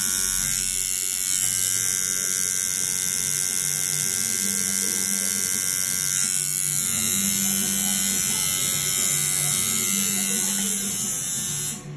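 Tattoo machine with an 18 round liner needle running steadily as it pulls the outline of a tattoo, with a high, even electric buzz; it stops shortly before the end.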